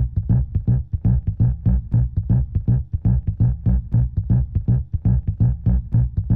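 Electronic music with a steady, bass-heavy beat of about four pulses a second.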